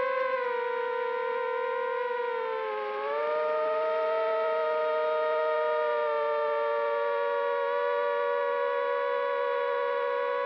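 Steady high whine of a racing quadcopter's four brushless motors (RCX 2205 2300KV). About 3 seconds in, the pitch dips and the tones split apart as the motors change speed, then the whine holds steady again.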